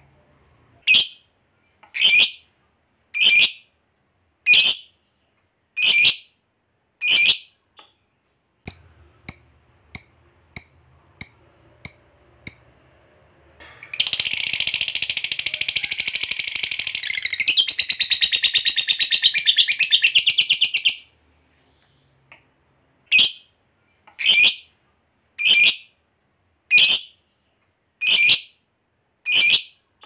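Lovebird calling. Sharp shrill chirps come about once a second, then a run of quicker short chips. Near the middle comes a long, fast, rattling chatter of about seven seconds, the long 'ngekek' that fanciers prize, and then the single chirps start again.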